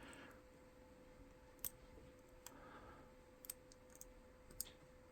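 Faint, scattered clicks of a lock pick and tension tool working the spool pins of a Master Lock M350 padlock, a handful of small ticks a second or so apart.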